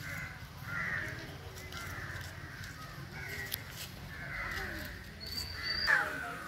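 Harsh bird calls, about six of them at roughly one-second intervals, over a low steady rumble.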